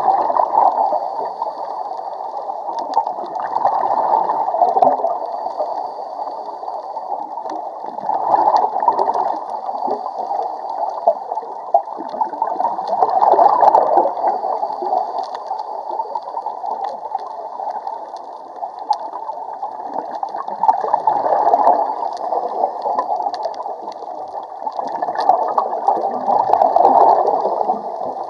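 Scuba regulator exhaust bubbles gurgling and rushing past the microphone underwater, swelling about every 4 to 5 seconds with each exhaled breath.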